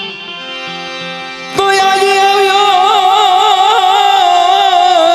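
Devotional music with held notes. About a second and a half in there is a sharp hit, and the music gets much louder, with a strong melody line that wavers and bends in pitch.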